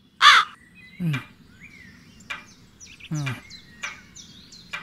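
Crow cawing: one loud, harsh caw just after the start, then two weaker caws that drop in pitch about one and three seconds in. Small birds chirp high in the background.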